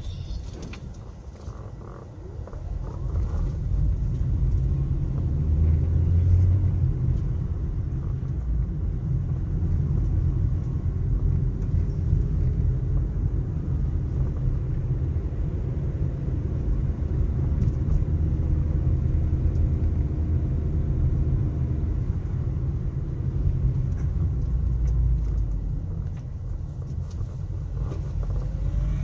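Car driving, heard from inside the cabin: a steady low engine and road rumble with a faint engine hum that drifts up and down. It is quieter for about the first two seconds, then holds steady.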